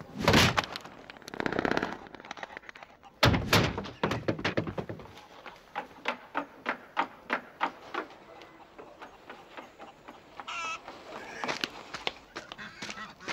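A few loud bangs and clatters in the first four seconds, then footsteps coming down a wooden staircase, an even run of steps about three a second.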